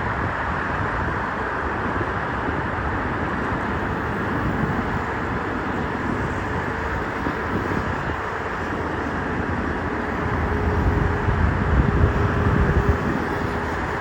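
Jet engine noise from an Airbus A380-861's four Engine Alliance GP7200 turbofans on the takeoff run: a steady, loud rush with a low rumble that swells about ten seconds in, and a faint steady whine.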